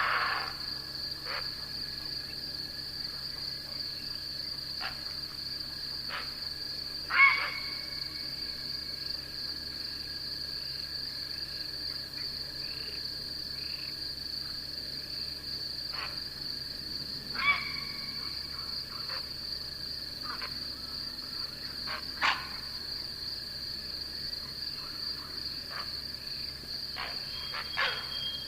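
Night insects trilling in a steady, unbroken high drone, with a fainter steady lower tone beneath. A few short, sharp animal calls stand out about 7 and 17 seconds in, plus occasional clicks.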